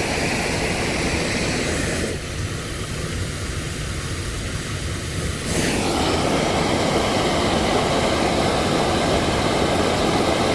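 Floodwater rushing through a ditch swollen by typhoon rain, a loud, steady rush that eases somewhat for a few seconds about two seconds in.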